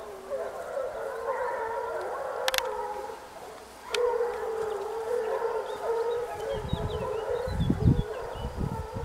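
A pack of hunting hounds baying together, many overlapping wavering cries. There are two sharp clicks in the first half and low rumbles near the end.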